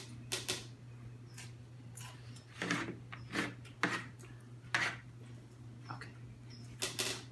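A few short, sharp knocks and scuffs on a kitchen table, spaced irregularly, as a piece of food is set down, over a steady low hum.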